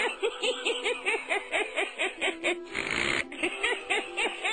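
Title soundtrack: a fast run of short pitched notes or cackles, about five a second, over a held steady tone, with a brief hiss of noise about three seconds in.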